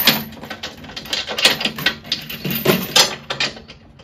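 Steel chain clinking and clanking against itself and the metal loader frame as it is handled and hooked onto welded chain hooks, in a string of irregular sharp metallic clicks.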